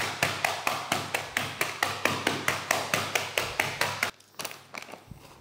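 Nuts being crushed by quick, even pounding: a rapid series of sharp knocks, about five or six a second, that stops about four seconds in.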